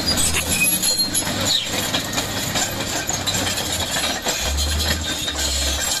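Crawler bulldozer's diesel engine running, with the clatter of its steel tracks; the low engine drone grows stronger about four and a half seconds in.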